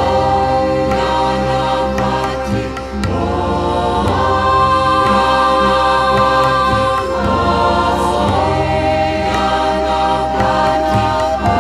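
Music with a choir singing in long held notes over a steady low drone, moving to a new phrase every few seconds.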